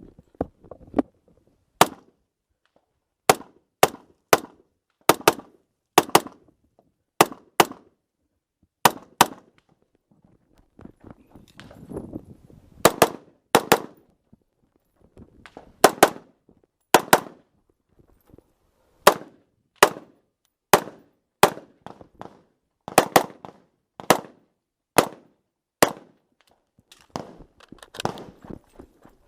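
AR-15 rifle firing a long string of shots, mostly in quick pairs a fraction of a second apart, with pauses of about a second between pairs.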